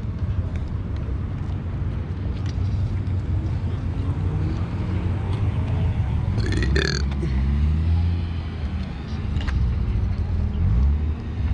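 A car's engine and exhaust rumbling at low revs, with a deep burble and a pitch that drifts up and down slightly. A brief, sharp, higher-pitched sound cuts in about seven seconds in.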